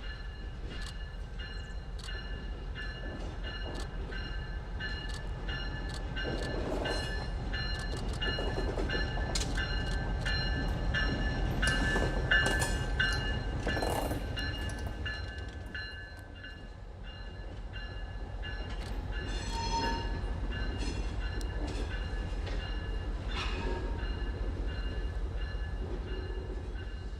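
Passenger train running on the rails: a steady low rumble with a regular clicking of wheels over rail joints and a thin steady squeal from the wheels. It swells to its loudest about halfway through, dips, then swells again.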